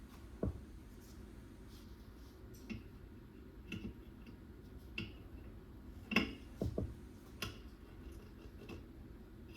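Scattered light clicks and knocks of hand tools against metal motor parts while a blower wheel is worked loose from its motor shaft, over a low steady hum. The loudest cluster of knocks comes about six seconds in.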